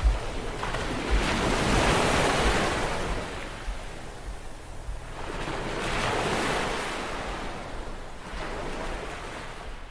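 Wind rushing over the microphone, swelling and easing in several gusts with a low buffeting rumble.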